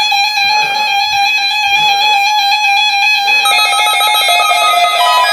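Weather alert radios sounding their alarm tones together for an incoming NOAA Weather Radio emergency alert. A steady electronic tone sounds throughout, and a second, beeping alarm tone joins it about three and a half seconds in.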